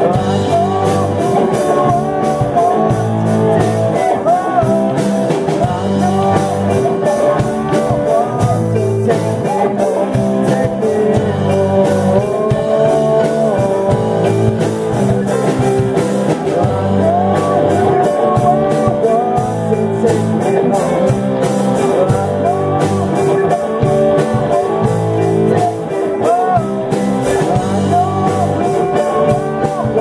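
Live rock band playing a song: drum kit, bass and electric guitars, with a lead singer's vocal over them.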